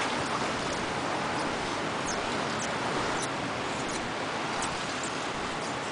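Steady rush of ocean surf, with faint short high-pitched chirps scattered through it.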